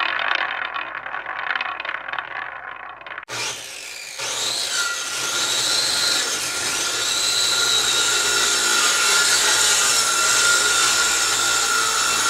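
Rough scraping, like sawing, for about three seconds. Then, after a sudden break, a power tool starts up and runs with a steady whine.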